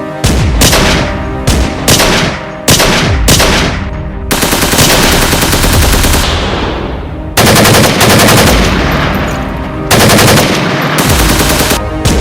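Gunfight: several single shots in quick succession, then, about four seconds in, long bursts of rapid automatic fire that go on almost without a break.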